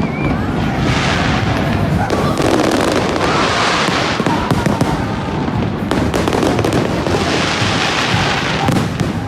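Aerial fireworks display: a dense run of sharp pops and bangs, with three swells of crackling, fizzing bursts.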